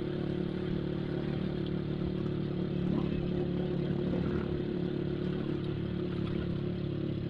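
Motorcycle engine running steadily while riding at an even pace, heard from on the bike, with road noise.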